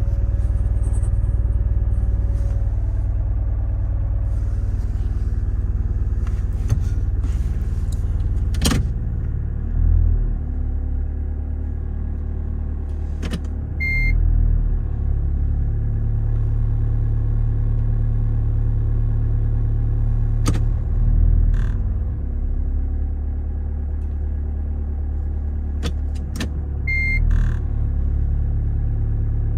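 Hyundai Tucson ix running with a steady low drone that swells briefly four times, with a few sharp clicks and two short high beeps. It is running after repair of a fault in pulse generator A, the automatic transmission's input-speed sensor.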